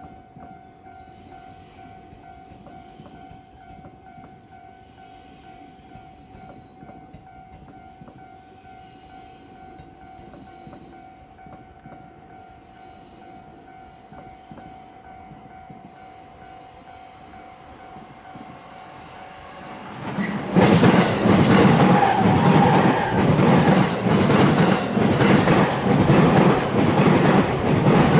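Level-crossing warning signal sounding a steady tone. About 20 seconds in, an electric train on the JR Tokaido Line arrives and passes loudly, its wheels clacking rhythmically over the rail joints.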